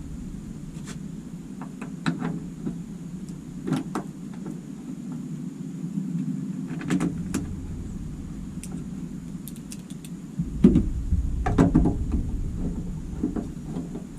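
Scattered clicks and knocks of tools and plastic parts as a minivan tail light assembly is tightened back into place, over a steady low hum. A denser cluster of knocks with a low rumble comes about two-thirds of the way in.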